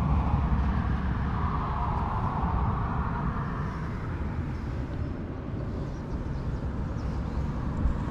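Steady rumble of road traffic crossing a timber road bridge overhead, swelling as a vehicle passes about two seconds in.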